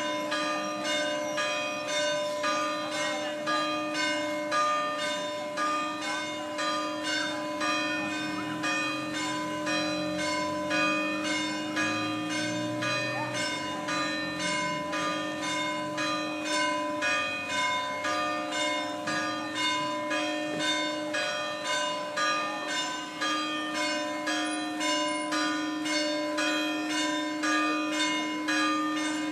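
Church bells ringing continuously in quick, evenly spaced strokes, about three a second, their tones overlapping and ringing on.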